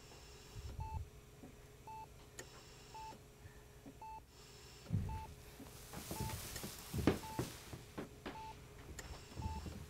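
Bedside medical monitor beeping steadily, one short high beep about every second. A few soft bumps and rustles of movement in the second half.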